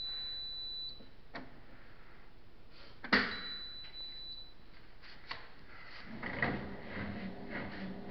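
Washing machine control panel beeping twice, each short high beep with a sharp click of the programme knob or buttons, as the programme is reset. About six seconds in, a low hum with light knocking starts as the machine begins to run.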